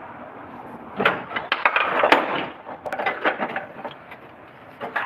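A quick run of knocks and clatter starting about a second in and lasting a couple of seconds, then a few scattered knocks.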